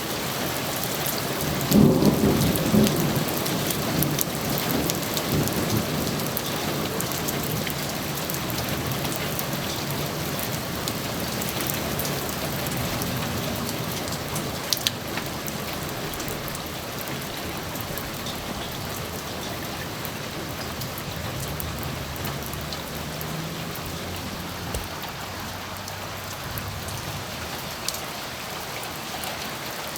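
Steady rain falling, with a clap of thunder about two seconds in that rumbles and fades away over several seconds. A fainter roll of thunder comes later, and there are a couple of sharp drip ticks.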